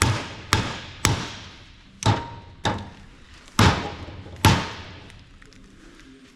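Hammer blows on the nut threaded onto a differential's drive pinion shaft, driving the pinion out of the carrier housing. Seven sharp strikes, about two a second at first and then spacing out, the last two the loudest, stopping about four and a half seconds in.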